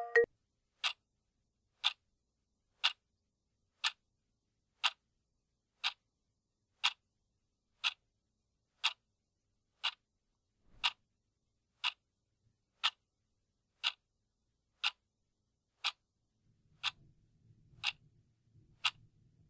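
A clock ticking steadily, one sharp tick a second. The last note of a phone alarm tone cuts off at the very start, and a faint low rumble comes in near the end.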